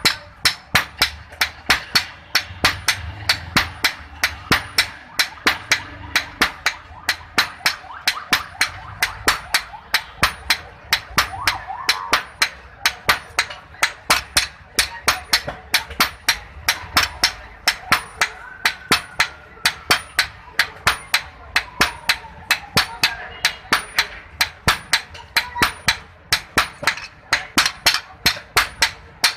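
Hand hammer striking iron on an anvil in a steady rhythm of about three blows a second, each blow a sharp ringing clink.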